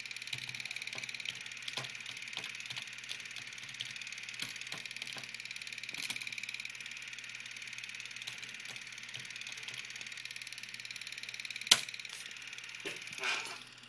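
Computer keyboard keys clicking at an irregular pace as a web address is typed, with one sharp, louder keystroke near the end, over a steady hiss.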